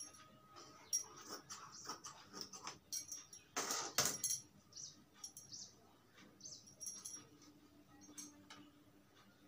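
Large steel tailor's shears snipping through cloth, with the cloth rustling. A loud rustle ends in a sharp clack about four seconds in as the shears are set down on a concrete floor, then scattered small clicks and cloth handling.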